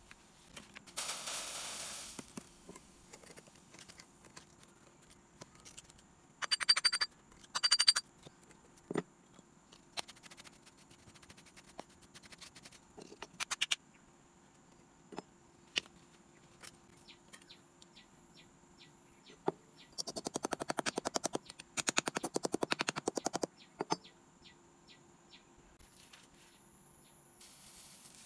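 A metal knife scraping and clicking against a freshly cast aluminium piece and the packed sand around it, in several short runs of fast, even clicks with single ticks between, and a brief hiss about a second in.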